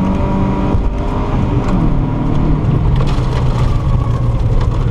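Volvo 940 rally car's engine heard from inside the cabin at speed on a gravel stage: running hard, then easing off about a second in with its pitch falling, then pulling steadily again at lower revs. Under it, a constant rush of tyre and gravel noise with scattered sharp ticks.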